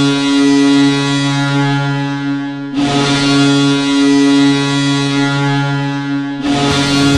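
Hockey arena goal horn blaring in long, steady blasts: the first ends about three seconds in, the next holds for about three and a half seconds, and a third starts near the end.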